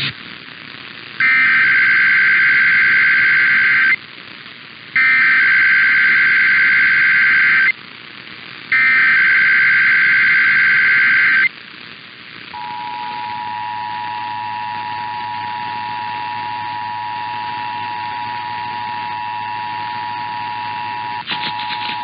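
Emergency Alert System test over the radio: three bursts of the SAME header, a rapid warbling digital data signal that opens the alert, then the steady two-tone EAS attention signal, which starts about halfway through and has a brief break near the end.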